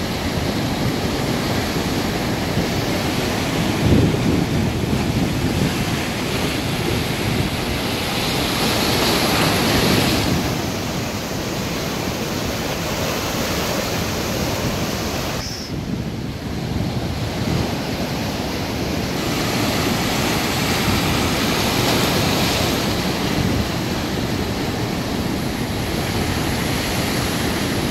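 Sea surf breaking and washing over a rocky breakwater, a steady rushing noise that swells louder and ebbs as waves come in, with wind buffeting the microphone.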